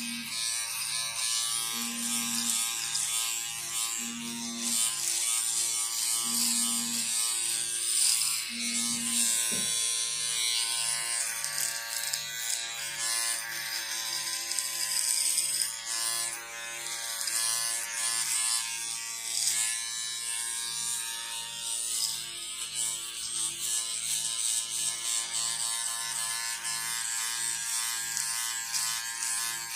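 Electric shaver running continuously: a steady motor buzz with a high hiss that rises and falls.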